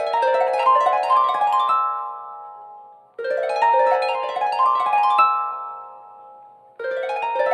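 Samsung Galaxy S5 ringtone: a quick rising run of plucked, harp-like notes that rings out and fades, looping about every three and a half seconds.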